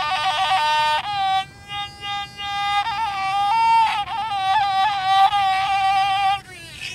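K'ny, a Vietnamese bowed bamboo one-string fiddle whose string is tied by a thread to the player's mouth, playing a slow improvised melody: high, voice-like held notes that slide and waver, with brief breaks between phrases.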